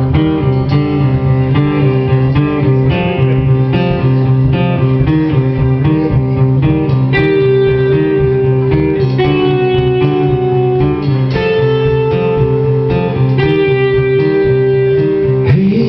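Live band playing a song's instrumental intro: guitars over a repeating low riff, with a melody of long held notes coming in about seven seconds in.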